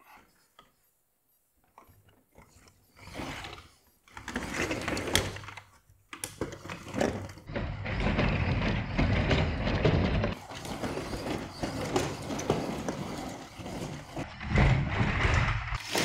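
The plastic block tracks of a large 3D-printed PLA excavator scrape and clatter on a wooden plank ramp as the machine is pushed down it by hand. Near silence at first, a few knocks, then from about six seconds in a continuous scraping with many small clicks and knocks.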